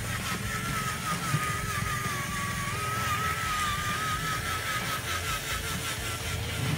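Radio-controlled dump truck loaded with soil, driving slowly: a steady high motor-and-gearbox whine that wavers slightly in pitch, over a low rumble.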